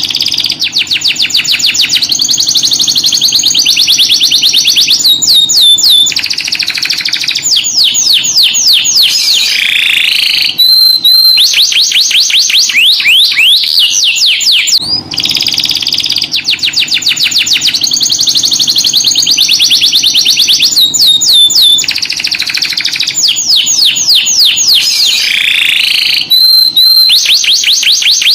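Domestic canary singing a loud, continuous song of fast trills and rolls with quick sweeping notes. The same run of phrases repeats about halfway through, as a looped recording.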